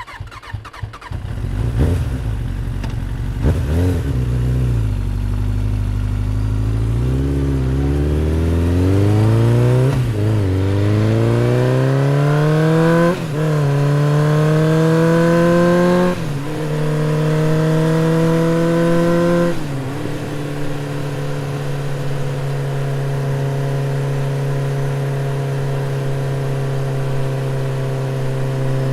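Motorcycle engine pulling away and accelerating through the gears. The pitch climbs and drops back at each of several shifts, then holds steady at cruising speed for the last part.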